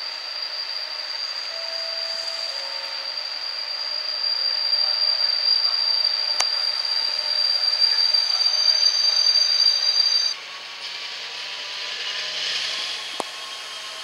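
Class 68 diesel-electric locomotive running with a train of box wagons. A steady high whine runs with it and cuts off suddenly about ten seconds in, leaving fainter, slowly falling tones.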